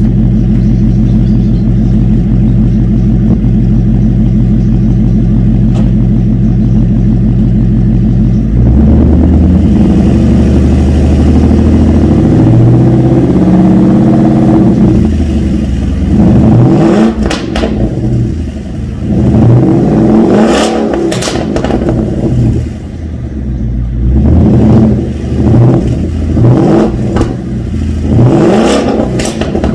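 Kenne Bell supercharged Ford Mustang GT V8 through a Solo Performance Mach XV exhaust, idling steadily with an even pulse for about eight seconds. It is then revved, the pitch rising and falling in a string of blips, quicker and sharper in the second half.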